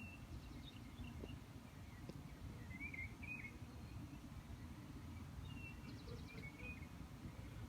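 Small birds chirping now and then in short calls, with a quick rapid trill about six seconds in, over a low, steady background rumble.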